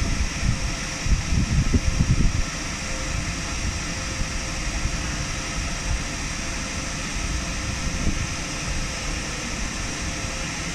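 Electric locomotive of the ÖBB Taurus type, standing with its cooling fans and blowers running: a steady mechanical hum with a fixed high whine over a low rumble. A stronger patch of low rumble comes between about one and two and a half seconds in.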